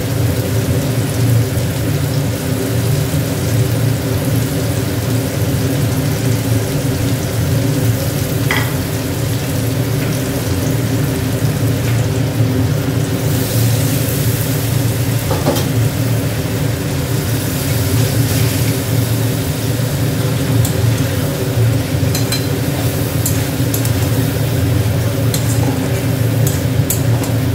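Spice paste frying and sizzling in a wok with potatoes and tomatoes as a spatula stirs it, over a steady low hum.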